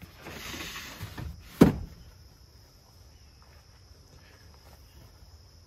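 A plywood panel topped with rubber matting scraping as it is slid out of a pickup's bed, then one sharp knock about a second and a half in.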